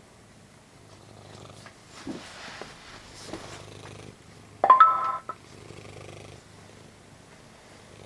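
A cat purring close to the microphone, a low rumble that pulses with its breaths. About halfway through comes one short, loud tone of two steady pitches, stepping up.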